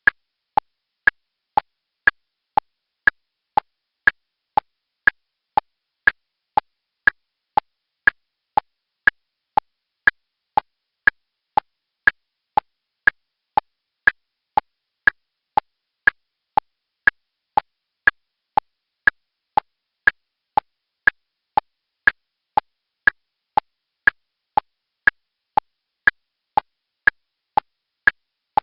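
Turn-signal ticking: steady, evenly paced clicks about two a second, alternating between a higher and a lower click.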